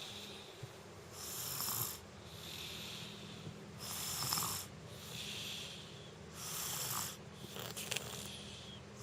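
A person with a cold snoring in sleep: three louder snores about two and a half seconds apart, with softer, hissing breaths between them.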